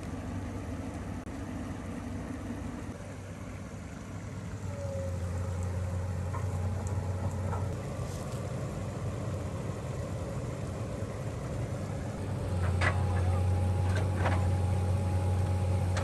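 Komatsu hydraulic excavator's diesel engine running steadily, rising under load twice as the arm works to set a large corrugated culvert pipe in the creek. A few sharp metallic knocks come near the end.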